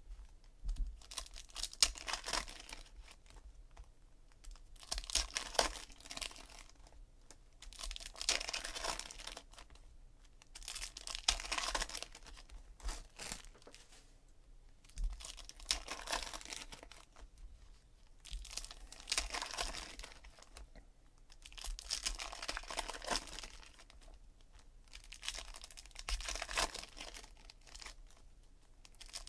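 Foil trading-card pack wrappers crinkling and tearing as packs are torn open by hand, in bursts every few seconds.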